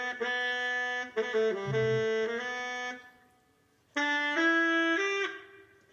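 Music played through a Blackweb Soundstone Bluetooth speaker: a melody of long held notes in two phrases, with a break of about a second between them.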